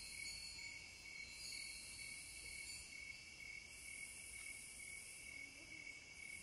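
Faint, steady, high-pitched insect-like chirring in the background, with a hiss that swells and fades about every two and a half seconds.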